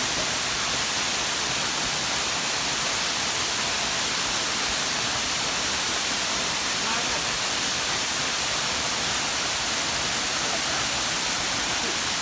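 Waterfall: a steady, even rush of falling water that starts and stops abruptly.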